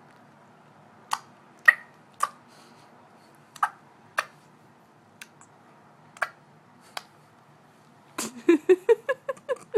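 A child making mouth noises: sharp tongue or lip clicks at irregular intervals, then about eight seconds in a rapid string of short, high voiced syllables, about six a second, rising in pitch.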